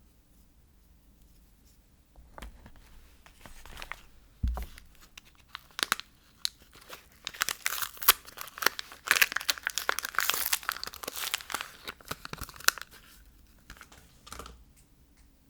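Soap packaging unwrapped by hand: the wrapper crinkles and tears, starting about two seconds in, busiest in the middle, then dying away, with a soft knock about four and a half seconds in.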